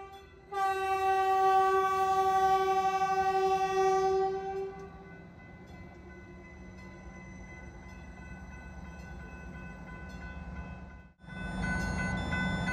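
Horn of a Stadler diesel multiple unit sounding one long blast of about four and a half seconds as the train passes. A quieter running rumble follows. About eleven seconds in, the sound cuts off abruptly and comes back as a louder passing rumble with a few steady high tones.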